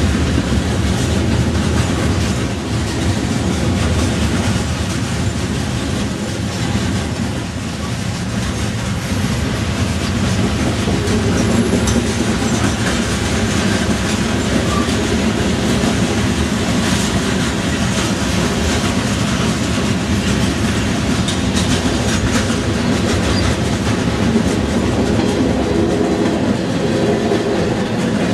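Freight train cars rolling steadily past: steel wheels on the rails making a continuous rumble with a clickety-clack over the rail joints.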